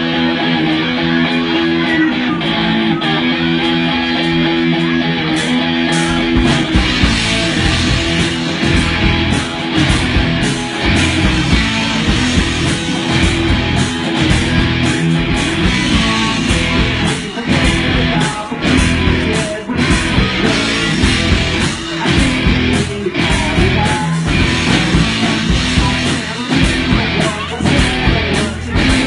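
Rock music: guitar chords held alone for about six seconds, then a full band with drums comes in and plays on steadily.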